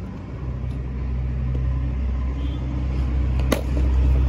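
A cricket bat hitting a ball once with a sharp crack about three and a half seconds in, over a steady low rumble.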